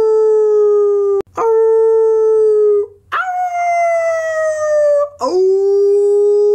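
Long drawn-out howls in a row: each one scoops up at its start and then holds a steady pitch for one to two seconds. The third is higher and slowly slides down, and a fourth is still going at the end.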